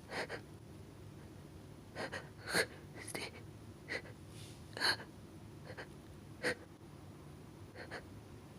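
A person's short, sharp gasping inhales, the catching breaths of a sneeze building up, coming at uneven intervals. The strongest come about two and a half and five seconds in.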